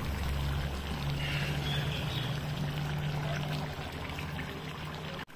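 Chicken curry bubbling at a simmer in the pot: a steady wet hiss of bubbles, with a low hum underneath that fades about four seconds in.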